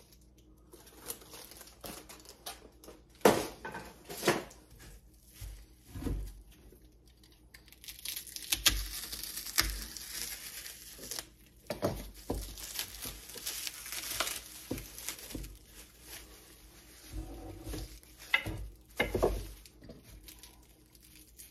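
Plastic wrapping crinkling and tearing as it is cut and pulled off new wooden axe handles, with a dense stretch of crinkling in the middle. Sharp knocks come now and then as the handles and a knife are handled on the workbench.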